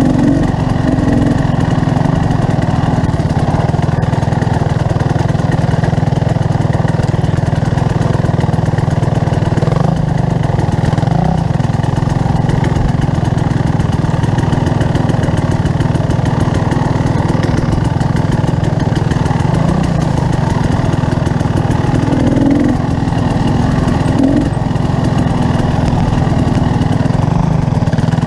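Motorcycle engine running steadily while riding along, with only small changes in level.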